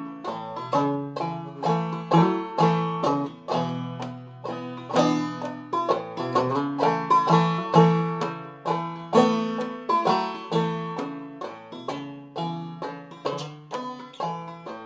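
Five-string banjo played clawhammer style in double B-flat tuning, picking a waltz melody in a run of sharp plucked notes that ring over each other. The playing grows softer over the last few seconds.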